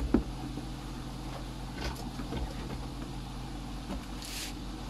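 Steady low electrical hum with a few faint clicks and taps as multimeter test leads are handled and placed on the board, and a brief soft hiss near the end.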